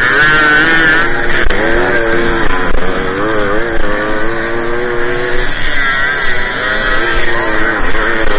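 Small two-stroke moped engine running hard under the rider, its pitch wavering up and down as the throttle and load change, over steady rushing noise from the ride.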